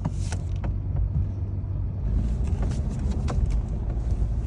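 The supercharged V8 of a 2009 Cadillac XLR-V runs with a steady low rumble as the car creeps along slowly, with a few faint clicks. The suspension clunk it is being driven to show does not come this time.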